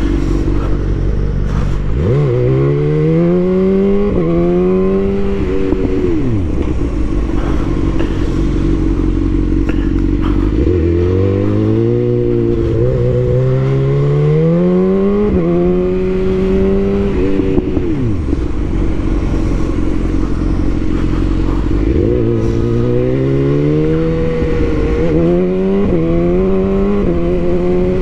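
Sportbike engine accelerating hard three times, its pitch climbing and dropping back at each upshift before climbing again, with a steady lower drone between the runs.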